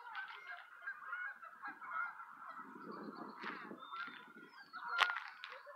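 Many birds giving short, repeated calls that overlap throughout. A low rumble comes about three seconds in, and a sharp click just after five seconds.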